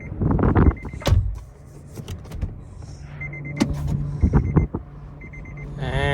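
Strong wind buffeting the microphone in uneven gusts, with knocks and rumble over a steady low hum. A voice calls out right at the end.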